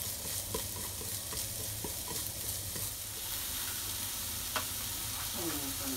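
Diced onion sizzling in hot oil in a nonstick frying pan. In the first few seconds wooden chopsticks click against the pan as the onion is stirred, and there is a single sharp tap about four and a half seconds in.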